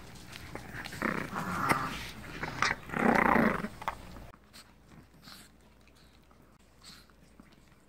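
Long-haired chihuahua growling in two short rough bursts, about a second in and again around three seconds in, while guarding a treat. Small clicks of chewing come between the bursts.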